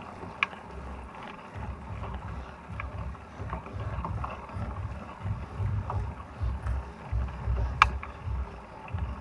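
Wind buffeting the microphone of a camera on a moving mountain bike, as a low fluttering rumble, with a few sharp clicks and rattles from the bike over the concrete lane. The loudest click comes near the end.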